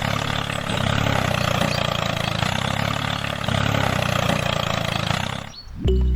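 An engine running steadily, with a low pulse that swells about every second and a half. It cuts off sharply near the end and music begins.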